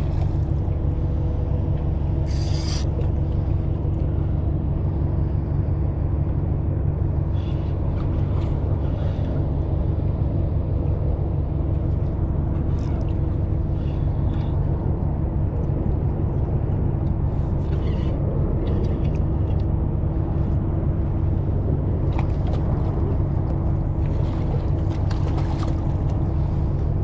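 Steady low mechanical drone with a couple of steady hum tones in it, like a large engine or machinery running, with a few light clicks scattered through.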